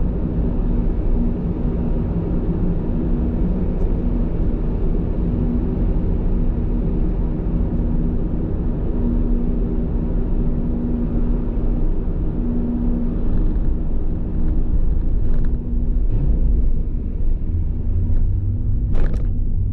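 Steady low engine rumble with a constant hum, with a few short knocks in the last few seconds.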